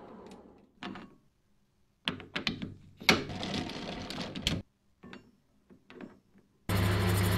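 Metal clicks and short rattling clatter from parts being handled at a metal lathe, loudest from about two to four and a half seconds in. Near the end a machine motor starts suddenly and runs with a steady hum.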